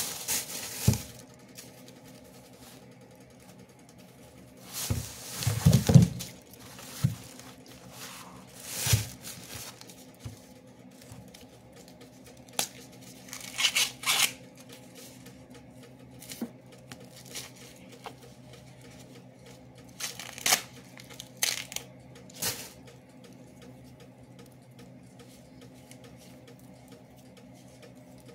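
Husks being torn and peeled off ears of fresh corn by hand, in irregular rustling, tearing bursts, with a plastic bag crinkling now and then. Quieter pauses fall between the bursts.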